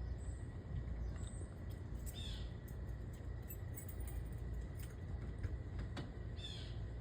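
Outdoor ambience: a few short bird chirps, about two seconds in and again near the end, over a steady low rumble.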